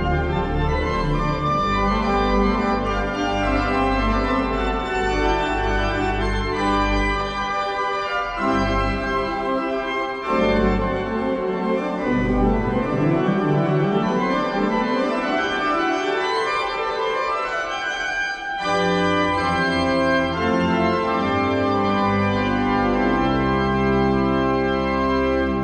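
Organ music: slow, full held chords, with quick runs of rising notes through the middle stretch.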